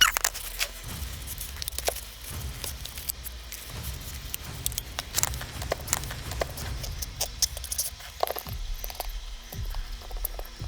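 Irregular small clicks, taps and rustles of a film camera and small cleaning tools being handled close by.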